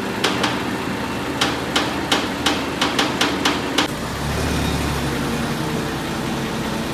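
Diesel engine of a truck-mounted crane running, with a run of about ten sharp knocks in the first four seconds. About four seconds in, the engine grows louder and steadier as it drives the crane's hydraulics for the lift.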